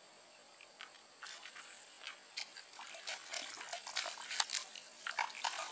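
Water splashing at the surface of a weedy swamp in a string of short, sharp splashes that come thicker over the last two or three seconds. Under it runs a steady, high-pitched insect buzz.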